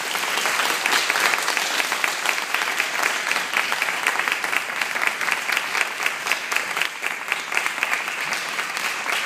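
Audience applauding: dense clapping from many hands, easing slightly near the end.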